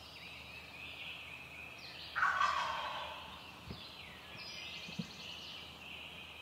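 Wild turkey gobbler gobbling once, a loud rattling call about two seconds in that fades over a second, with songbirds singing throughout.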